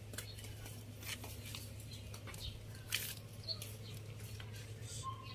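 A hand brushing and handling tomato plant leaves: faint scattered rustles and small clicks over a steady low hum.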